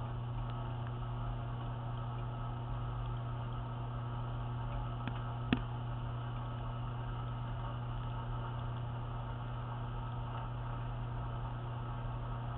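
Dishwasher running, heard from inside the machine: a steady low hum with one sharp click about five and a half seconds in.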